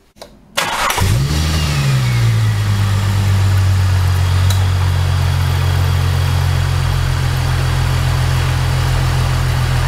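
Holden Commodore's supercharged 3.8-litre L67 V6 cranked over briefly, catching about a second in with a quick rise in revs, then settling into a steady idle. It is being run with the nose of the car jacked up so that air trapped in the cooling system works its way up to the radiator.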